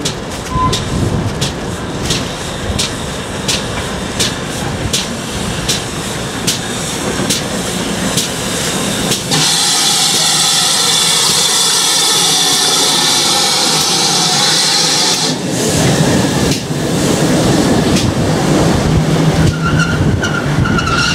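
GWR 57xx class pannier tank steam locomotive drawing near with an even beat, a little under two sharp beats a second. As it comes alongside, a loud hiss of steam lasts about six seconds, and then its carriages rumble past on the rails.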